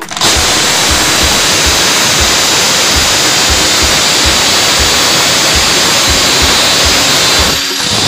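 Handheld electric drill boring through the sheet-metal drum of a front-load washing machine, a larger bit widening pilot holes. It runs loud and steady, stops briefly near the end, then starts again.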